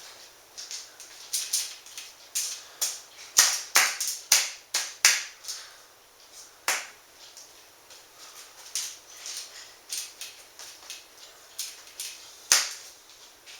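A utensil clicking and scraping against a baking sheet as drained black beans are spread thin on it, in irregular short strokes, busiest a few seconds in, with one sharp knock near the end.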